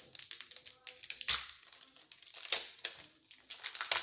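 Foil Pokémon booster pack wrapper crinkling and tearing as it is pulled open by hand, in irregular crackles; the loudest comes about a second in, another about two and a half seconds in.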